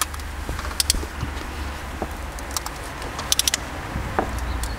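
Torque wrench tightening the cylinder head bolts on a BMW M57 straight-six diesel, first pass to 70 Nm: a few sharp metallic clicks, a quick cluster of them about three and a half seconds in, over a steady low hum, as the head bolts pull the head down into place.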